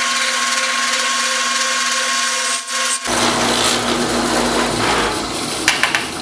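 Benchtop drill press running with a steady motor whine while a 1/4-inch bit drills through a thin metal bracket. About halfway through, the sound turns suddenly rougher and deeper, then eases off near the end with a few sharp clicks.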